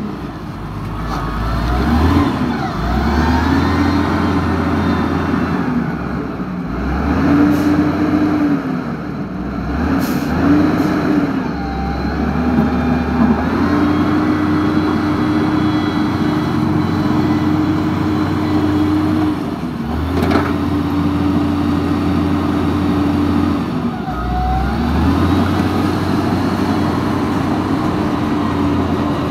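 Huina remote-control wheel loader's motors whining as it drives and works its arm, the pitch rising, holding steady and dropping away each time it starts and stops, over a low hum. One sharp click about two-thirds of the way through.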